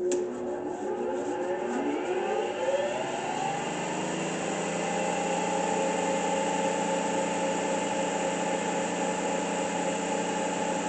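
State D20 20-inch disc sander's three-phase electric motor switched on with a click, spinning up with a rising whine over about four seconds, then running steadily at full speed with a steady hum and whine.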